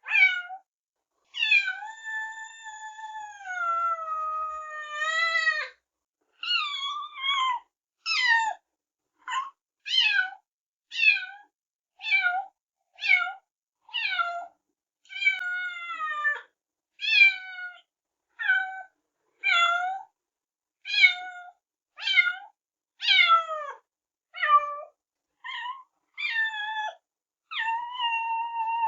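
Kitten meowing over and over: one long drawn-out meow about a second in, then a run of short high meows about one a second, each falling in pitch.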